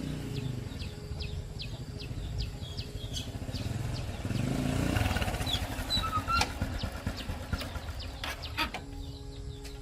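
A small engine running steadily, growing louder about halfway through, with birds chirping over it.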